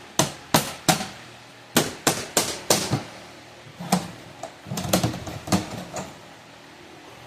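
A run of about a dozen sharp clicks and knocks at irregular intervals, from hand tools and metal being worked on a shipping crate. They come in two clusters and stop about six seconds in.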